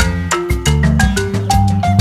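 Upbeat background music: quick mallet-percussion notes like a marimba over a bass line and a steady beat.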